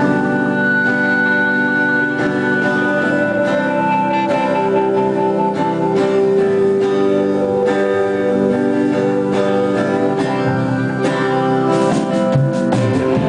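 A band playing live music, with guitar prominent over a steady beat.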